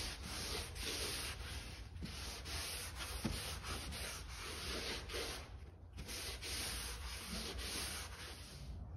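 A cloth wiped back and forth over a faired cedar hull: a rubbing hiss in repeated strokes, about two a second, with a brief pause about six seconds in.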